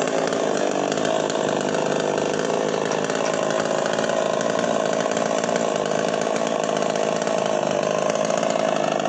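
Chainsaw running steadily, cutting into a tree trunk.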